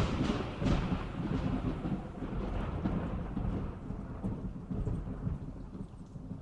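Low rumble like distant thunder with a fine patter like rain, fading out steadily.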